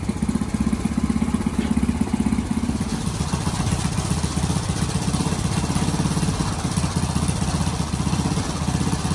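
Small gasoline engine of a pressure washer running steadily, its pitch dropping slightly about three seconds in.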